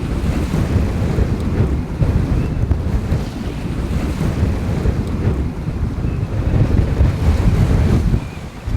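Strong wind buffeting the microphone at sea, a heavy gusting rumble with waves rushing underneath; it eases for a moment near the end.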